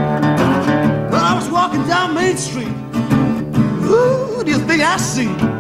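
Acoustic blues instrumental break on a resonator guitar, fingerpicked over a steady bass, with notes gliding up and down in pitch.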